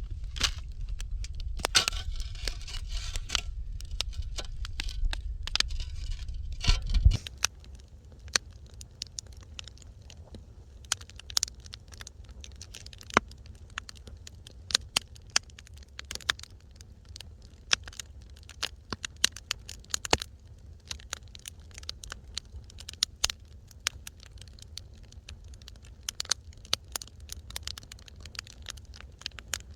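Wood fire in a fireplace crackling, with sharp pops scattered irregularly throughout. For the first seven seconds a louder low rumble and hiss sit under the pops, then drop away abruptly, leaving quieter crackling.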